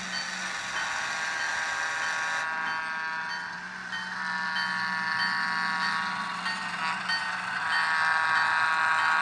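Bachmann HO-scale ALCO S-4's sound decoder sounding its Wabco E2 horn in repeated long blasts. A bell rings about twice a second, with the low diesel engine sound running underneath.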